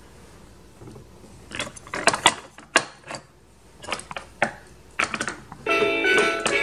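Hard plastic toy pieces clicking and knocking together in irregular bursts as a toddler handles a toy food play set. A tune of plucked-sounding notes starts near the end.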